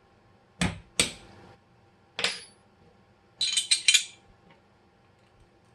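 Metal parts of a Glock 19 pistol clicking and clacking together as it is reassembled: three separate sharp clicks, then a quick run of clacks about three and a half seconds in.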